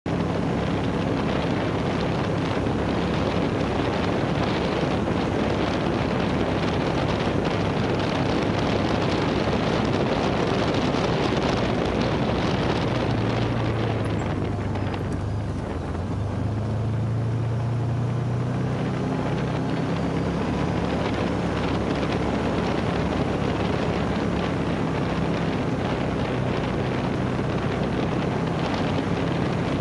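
UTV engine running while driving on a trail, with steady wind and tyre noise over it. About halfway through it eases off briefly, then picks up again.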